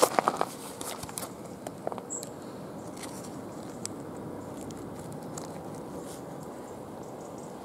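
A few crunches and crackles of gravel and dry leaf litter in the first two seconds, the loudest right at the start, then a steady low outdoor hiss with a faint tick or two.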